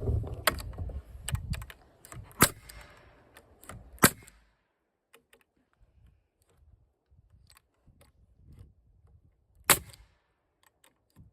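Nail gun firing nails into 2x4 lumber: single sharp shots a second or two apart, then a longer pause before one more near the end.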